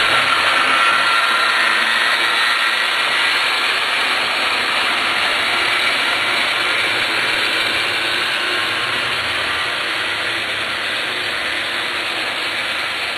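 Model trains running on layout track: a steady whirring, rattling noise of small electric motors and wheels on rail, easing off slightly toward the end.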